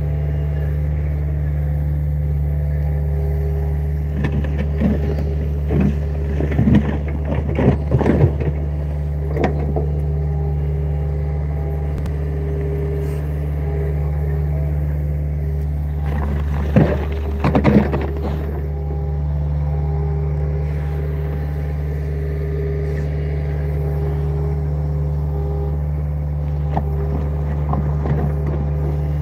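John Deere compact excavator's diesel engine running steadily, with a higher hum that comes and goes. Bursts of clatter and scraping come from the bucket working the soil, a few seconds in and again past the middle.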